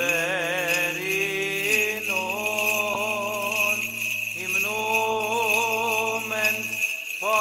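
Byzantine chant in Greek: one voice singing a melismatic, ornamented melody over a low sustained ison drone, which steps down to a lower note about two seconds in. The phrases break off briefly for a breath near the end.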